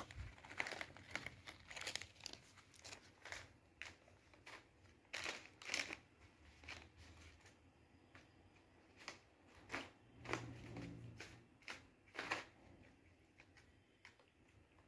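Plastic cat-treat pouches crinkling and rustling in short, irregular bursts as a kitten paws and noses through a pile of them.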